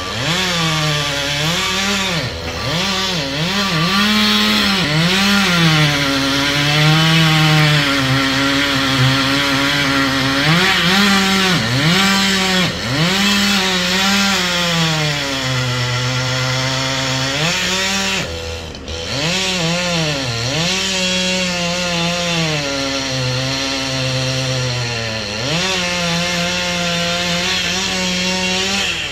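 Chainsaw cutting wood in repeated cuts: the engine pitch climbs at full throttle and sags as the chain bites. There is a brief let-off about two-thirds of the way through.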